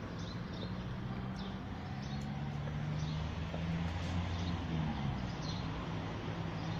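Small birds chirping in short, repeated high calls over a steady low hum.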